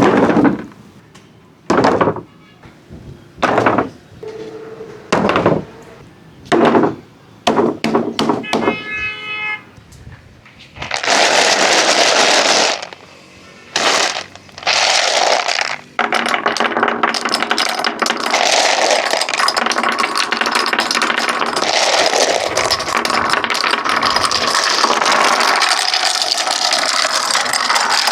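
Marbles running down a wooden marble run: a string of separate clacks and short rolls about every second and a half, then from about halfway a continuous rattling rumble of marbles rolling along the wooden track.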